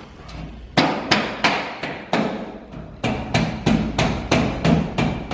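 Hammer knocks on a metal drywall profile, driving it into place: five quick blows at about three a second, a short pause, then about eight more.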